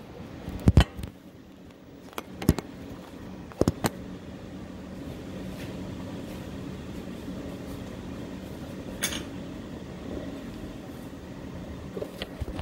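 Kitchen room tone: a steady mechanical hum, with a few sharp knocks and clicks in the first four seconds and another about nine seconds in.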